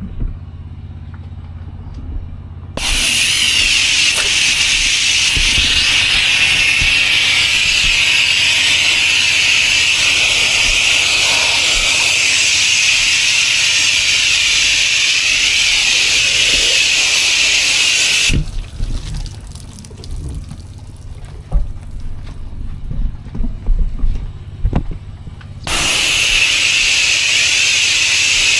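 Gas pressure washer with a Honda engine running, its spray wand blasting water in a loud, steady hiss. The spray starts about three seconds in and cuts off partway through, leaving the engine running with a few knocks. The spray comes on again near the end.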